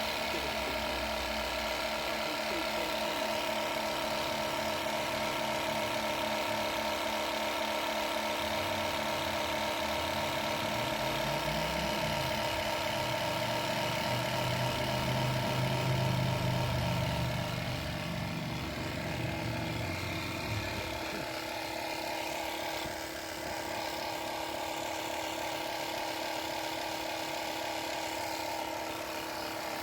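Air compressor running steadily as it inflates a van's spare tyre toward about 3 bar. A deeper hum beneath it drops away about two-thirds of the way through.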